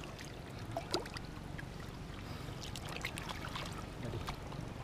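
Shallow muddy water sloshing as a fishing net is hauled through it by hand, with a few small splashes scattered through.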